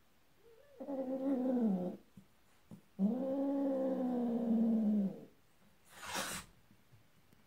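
Domestic cats mating: two long, low, drawn-out yowls, the second longer and falling away at its end. A short hiss follows as the female turns under the male.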